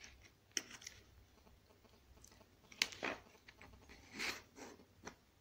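Faint, scattered clicks and a short rustle of hands handling a lamp holder and pushing a wire into it.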